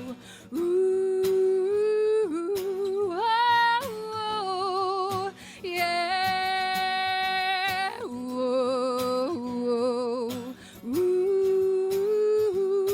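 Wordless singing: a single voice humming and holding long notes with vibrato, sliding up and down between pitches, phrase after phrase.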